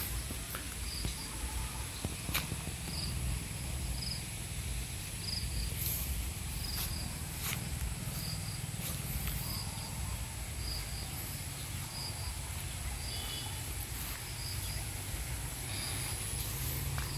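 Insects buzzing steadily in high tones, with a short high chirp repeating about once a second, over a steady low rumble.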